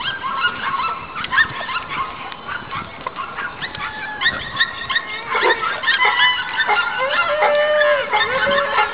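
A pack of young Cane Corso dogs yelping and whining in excited play, many short high-pitched cries overlapping, with a longer held whine near the end.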